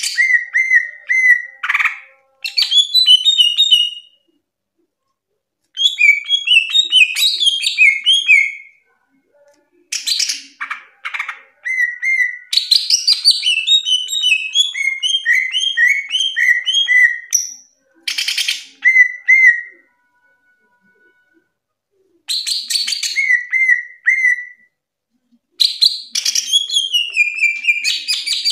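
Caged cucak ijo (green leafbird) singing loud, clear bouts of quick, varied whistled notes and trills, each bout lasting one to five seconds with short pauses between them.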